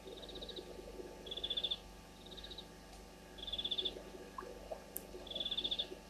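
A calling animal repeats short, high, pulsed trilled chirps about once a second, softer ones alternating with louder ones, over a faint low hum.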